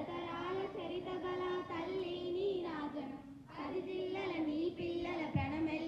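Many schoolchildren singing a Telugu song together in unison, in long held phrases with a short break about three seconds in.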